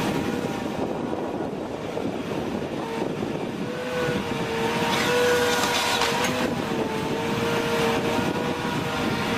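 Heavy forestry machine working: its engine runs steadily, with a whining tone that wavers slightly in pitch over a rough, noisy background.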